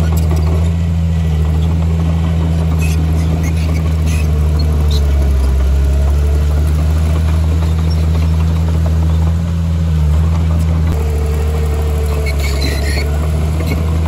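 Komatsu bulldozer's diesel engine running steadily, with a faint squeal twice and a few light clinks.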